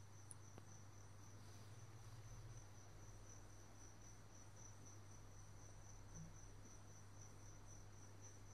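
Near silence with a faint cricket trill: a thin, steady, high-pitched pulsing chirp, over a low steady electrical hum.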